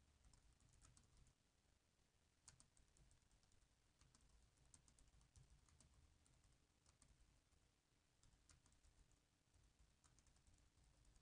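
Faint typing on a computer keyboard: irregular, quick key clicks.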